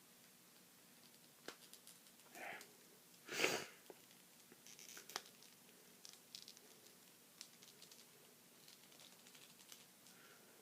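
Faint clicks and rustles of a plastic action figure being handled while its joints are worked, with a brief louder noise about three and a half seconds in.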